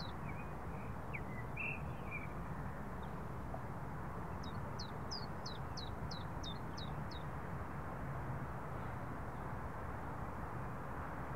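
Steady outdoor background noise with a small songbird calling: a few short chirps at the start, then a quick run of about eight high notes, each sweeping downward, from about four to seven seconds in.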